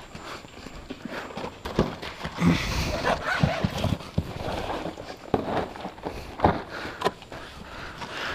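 Footsteps on a hard tiled floor, with irregular sharp knocks and clicks.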